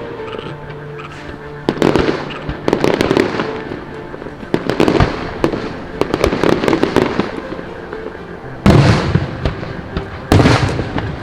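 Aerial firework shells bursting overhead: a string of sudden loud booms, each followed by crackling, with the two loudest bursts near the end.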